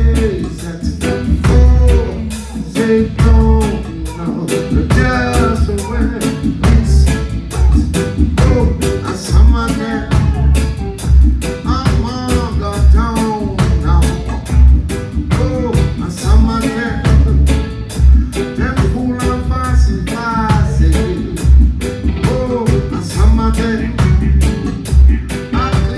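A band playing a song: a man's or woman's sung lead over heavy bass, guitar and a steady drum beat.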